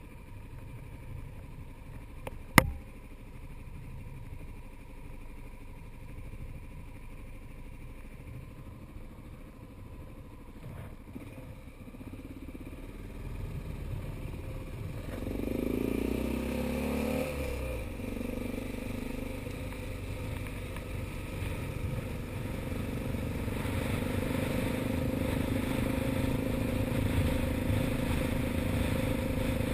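Motorcycle engine idling low, with one sharp click a couple of seconds in. About halfway through the bike pulls away and the engine note rises and falls as it accelerates. It then settles into a steady, louder engine note as the motorcycle rides on.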